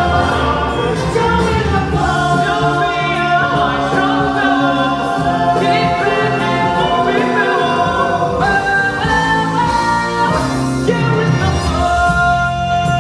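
Show-tune music: a chorus of voices singing over a full backing track, loud and steady.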